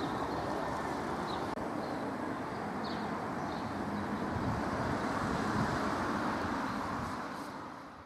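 Steady outdoor road-traffic hum, with a few faint high chirps now and then; it fades out at the end.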